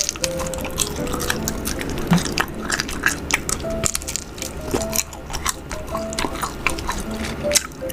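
Many short, wet, sticky clicks and crackles of wild honeycomb dripping with honey being eaten, over background music with held notes.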